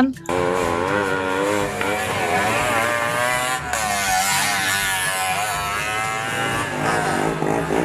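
Bajaj auto-rickshaw engine sound, running steadily with its pitch wavering up and down as it revs.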